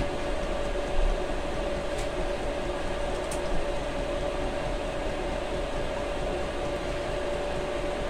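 Chinese diesel heater running on whiskey instead of diesel: a steady blower hum with a constant whine. Two short clicks come about two and three seconds in.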